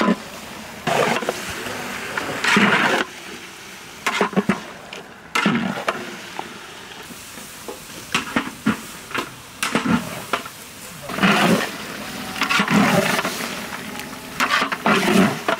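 Raw chicken pieces being stirred into spice paste in a large aluminium cooking pot with a long ladle: wet sloshing and scraping strokes, irregular, every second or two, over a steady frying hiss.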